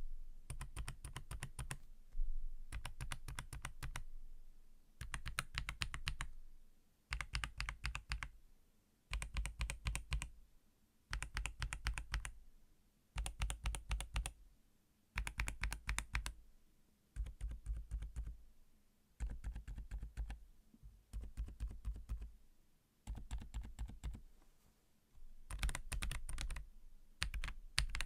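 Mechanical keyboard with tactile switches being typed on in short bursts of rapid keystrokes, about one burst every two seconds, each stroke a sharp click over a low thud.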